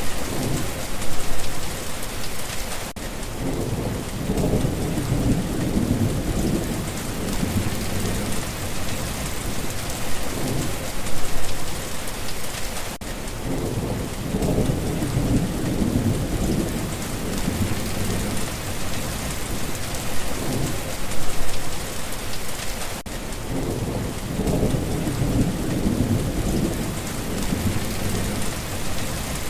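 Steady heavy rain pattering, with a low rumble of thunder rolling in and out that repeats about every ten seconds.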